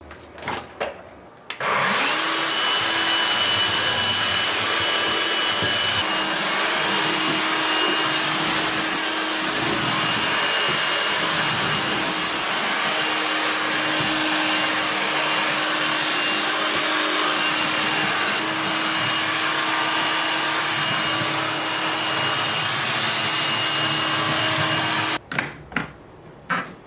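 Anker Home Vac Duo cordless cyclone stick vacuum switched on, its motor whine rising quickly to a steady pitch and running steadily with a loud rush of air. It switches off near the end, with a few clicks just before it starts and just after it stops.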